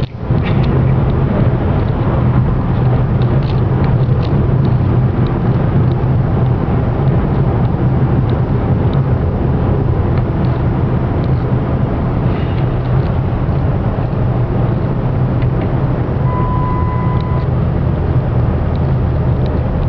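A car's engine and tyre noise heard inside the cabin while driving at a steady speed, with a low, even drone. About three-quarters of the way through, a short steady beep-like tone sounds for a second or two.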